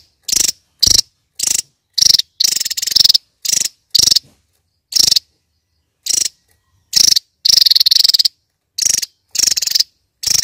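Javan tesia singing its rapid-fire 'nembak' song: a quick series of high, fast trilled bursts, most short and about twice a second, a couple drawn out to about a second, with a brief pause around the middle.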